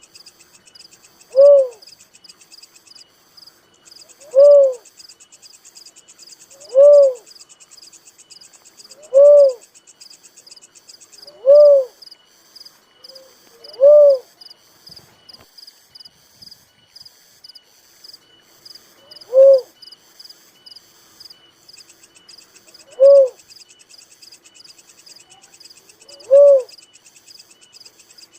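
A dove calling single short hooting notes that rise and fall in pitch, one every two to three seconds, nine in all with a longer pause midway. A steady high insect buzz runs underneath.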